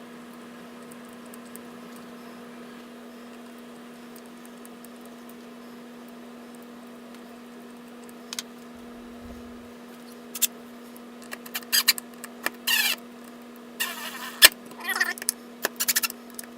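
Small screws being driven into a box's decorative hinges, heard as clusters of short scraping squeaks over the last six seconds or so, over a steady low hum.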